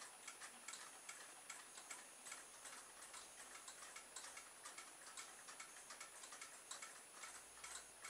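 Faint, quick, regular ticking, about four or five ticks a second, over near-silent room tone.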